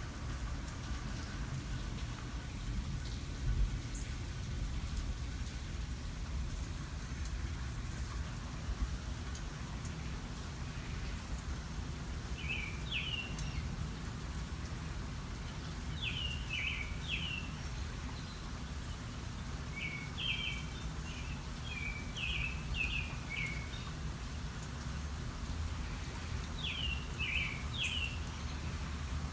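Steady rain falling during a thunderstorm. A bird sings four short phrases of quick, high chirps over it, the longest about 20 seconds in.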